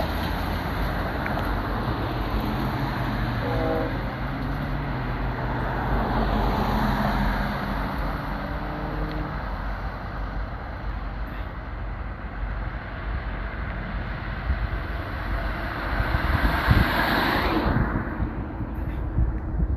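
Union Pacific freight train's horn sounding in the distance, a short blast about four seconds in and a longer one from about six to nine seconds, over a steady rumble of road traffic and the approaching train. A car passes close near the end.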